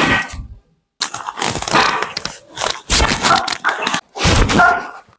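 A person's loud cries and exclamations in several bursts, typical of a patient reacting to a chiropractic knee manipulation.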